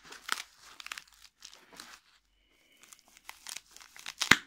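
Plastic bubble-wrap packaging and tape crinkling and tearing as a parcel is pulled open by hand, in irregular crackles with a sharp, loud one near the end.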